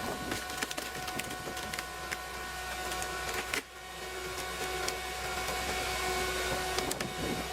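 Chainsaw running at a steady speed, with scattered clicks and a sudden brief drop in the sound about three and a half seconds in.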